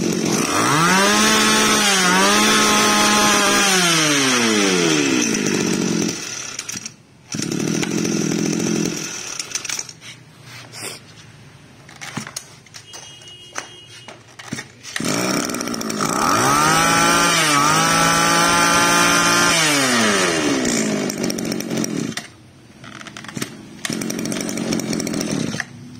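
Small two-stroke Mitsubishi brush-cutter engine running, revved up and held at high speed for several seconds near the start and again about 15 seconds in, dropping back to a lower, quieter idle in between and near the end.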